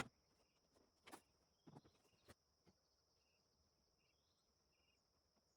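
Near silence with a faint steady high insect drone, such as crickets, and a few soft knocks in the first two or three seconds.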